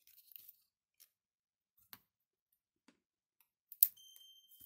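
Faint clicks of a plastic 3D-printed screwdriver body and tools being handled, then a sharp snap near the end as small cutters snip a plastic pin. A brief high steady tone rings for about half a second after the snap.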